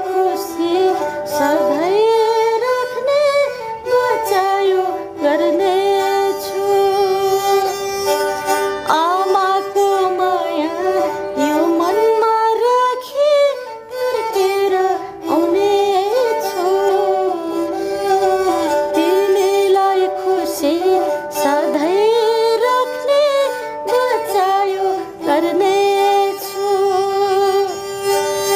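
Nepali sarangi, the bowed Gandharba folk fiddle, played while a woman sings a Nepali folk song. The bowed strings hold a steady note beneath her melody, which slides and bends between notes.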